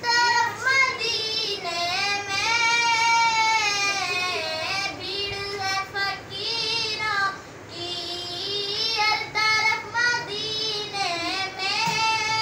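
A boy singing solo in long, drawn-out notes that bend and waver in pitch, with a short pause for breath about halfway through.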